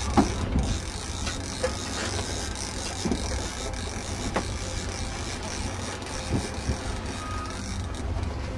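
Wind rumbling on the microphone over a steady hiss of water, with a few sharp knocks at irregular intervals, a clear one just after the start.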